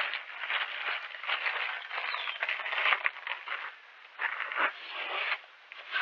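Rustling and scraping close to the microphone in quick, irregular strokes as old seed is brushed off a wooden platform bird feeder.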